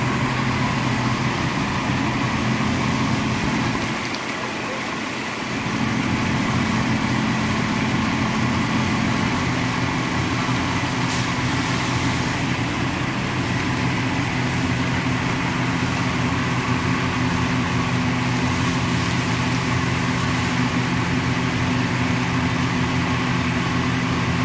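Steady engine drone with a constant low hum, typical of fire apparatus running at the scene; the low end drops out briefly about four seconds in.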